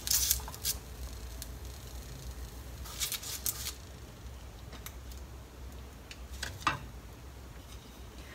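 Wooden chopsticks clicking and scraping as grilled dried sardines are lifted off a paper-lined frying pan onto a plate: a few short, sharp clicks, at the start, around three seconds in, and just before seven seconds.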